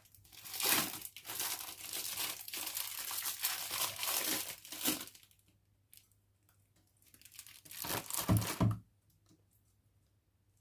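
Crinkling and tearing of a wrapper, most likely the cheese packaging being opened: a long rustling stretch of about five seconds, then a shorter one near eight seconds in.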